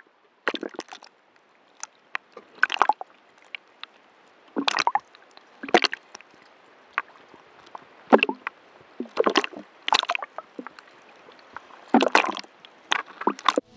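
Small sea waves sloshing and splashing against a camera held at the waterline, in short irregular bursts roughly once a second, with near quiet between them.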